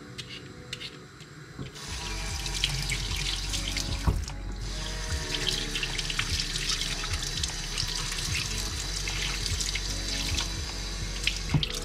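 Kitchen tap running into a sink, the stream splashing over a potato and vegetable peeler being rinsed. The water comes on about two seconds in, breaks off briefly around four seconds, and stops near the end.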